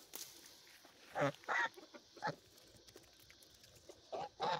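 White domestic goose giving about five short calls at close range, three in the first half and two near the end, while it begs for food from a hand.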